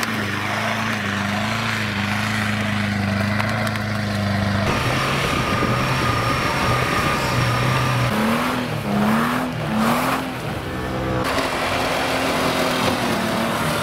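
Off-road 4x4 engines running hard and revving while driving through deep snow. A held engine note changes abruptly several times, and between about eight and ten seconds in the pitch rises and falls quickly with repeated throttle blips.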